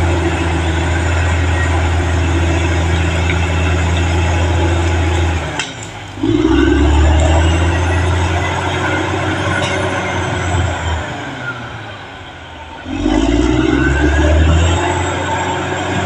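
Caterpillar D6R XL bulldozer's diesel engine working under load. The engine note dips twice, briefly about six seconds in and for longer from about eleven to thirteen seconds, and each time it rises back up in pitch.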